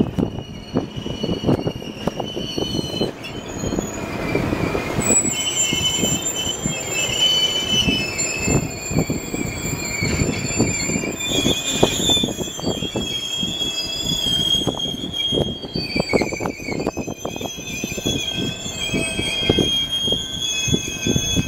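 Passenger train cars rolling slowly past. Their steel wheels squeal in high, wavering tones, over irregular clunks of wheels on the rail joints.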